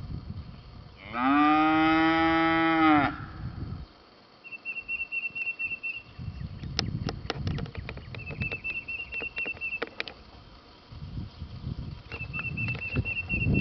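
One of the cattle gives a single long moo, starting about a second in and lasting about two seconds, its pitch rising slightly then falling at the end. Afterwards a high, fast trill repeats three times, with a few sharp clicks in between.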